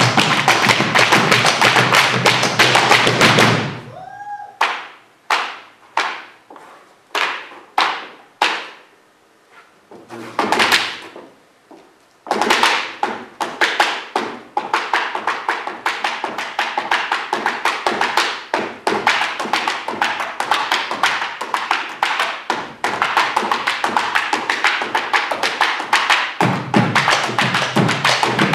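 Malambo zapateo: a dancer's feet striking a wooden stage in fast, dense tapping and stomping, with bombo drums beating along. For about eight seconds after the opening the rhythm breaks into single stomps with pauses between them, then the fast tapping resumes.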